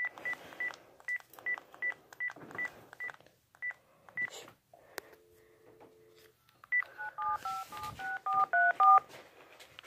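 Cordless phone handset: about eleven single high key beeps at an even pace, then the steady two-note dial tone for just over a second about five seconds in, then a quick run of about eight two-note touch-tone beeps as a phone number is dialed.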